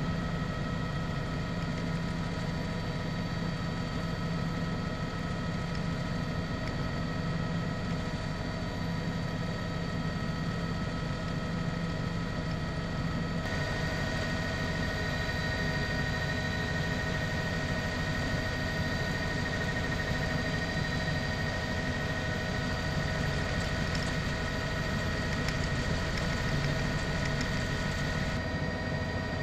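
Steady drone of a helicopter's turbine engine and rotor, a low rumble with a constant high whine. The tone shifts slightly about halfway through and again near the end.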